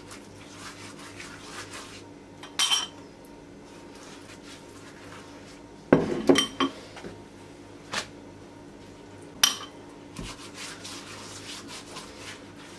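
A clear plastic-handled silicone pastry brush clinking against a glass bowl as it is dipped in the sauce: about five short, sharp clinks spread out over several seconds, with a steady low hum underneath.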